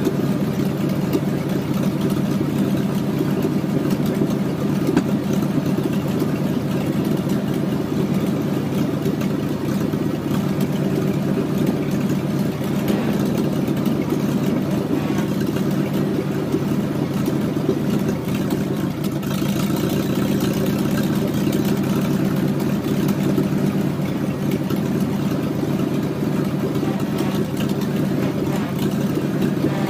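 An engine idling steadily, without revving up or down.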